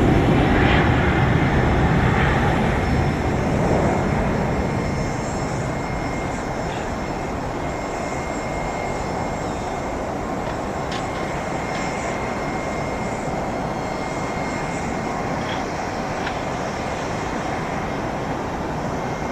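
Airbus A320-214's CFM56 jet engines at takeoff thrust, a dense roar with a faint steady high whine. It eases off over the first several seconds, then holds steady as the jet climbs away.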